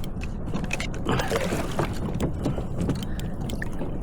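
Sea water sloshing and splashing against a kayak, with short knocks and a steady rumble of wind on the microphone.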